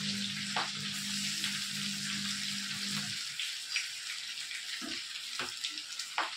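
Chicken kabab pieces deep-frying in a kadai of hot oil: a steady sizzle, without spattering. A low hum runs through the first three seconds and then stops, and a few sharp clicks come in the second half.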